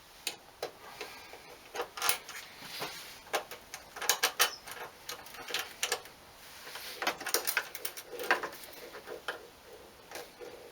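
Irregular metal clicks and taps of a bolt being put back in and tightened, some coming in short runs of quick clicks.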